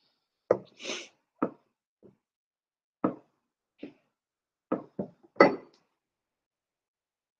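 A clear plastic cup rolled and pressed over Play-Doh on a wooden table, giving a string of about ten short knocks and clicks in the first six seconds.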